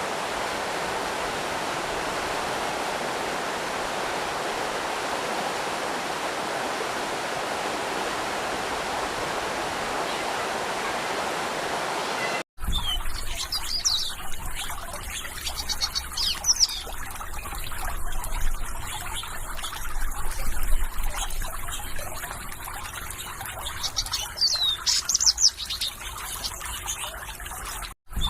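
Steady rush of flowing water that cuts off abruptly about halfway through. It gives way to songbirds chirping, repeated quick high chirps and trills over a low rumble.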